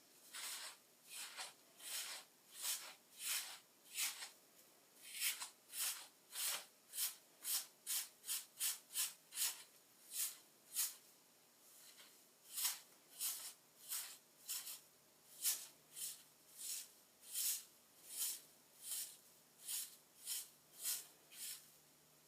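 Short strokes of a teasing comb backcombing a section of hair, about one and a half strokes a second, with a short pause near the middle.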